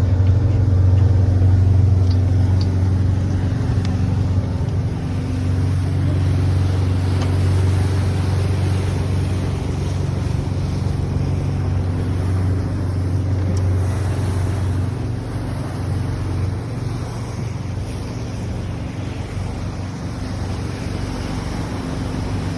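A tour boat's engine drones steadily with a low hum over a steady wash of noise; the hum weakens about fifteen seconds in.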